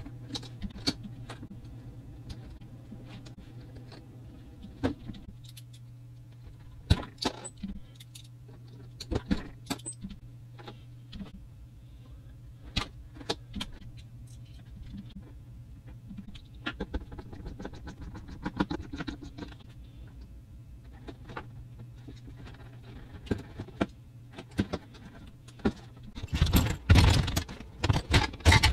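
Small plastic toy-train parts handled by hand: scattered clicks and knocks of hard plastic pieces, ending in a loud burst of rattling and clattering near the end.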